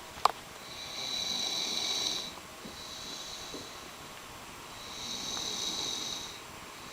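A person snoring: two long snores about four seconds apart, each lasting over a second and a half, with a fainter breath between them. A sharp click comes right at the start.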